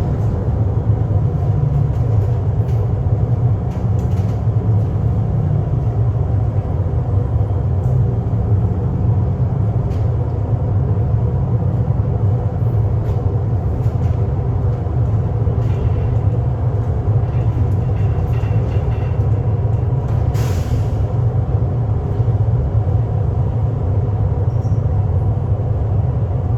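Steady low rumble of a moving rail car heard from inside, with faint steady tones and small rattles, and a brief hiss about three-quarters of the way through.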